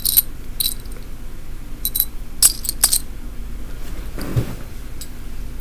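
Small metal pin-back buttons clinking together as they are handled, a handful of sharp clicks in the first three seconds. About four seconds in comes a softer rustle with a low thump.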